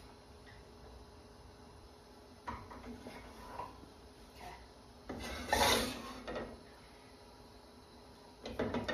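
Cookware being handled on a gas stove: a few light scrapes and knocks of a spatula and saucepan, then about five seconds in the loudest sound, a metal pot slid and set down on the stove grates with a clatter lasting a second or so. More clatter comes near the end.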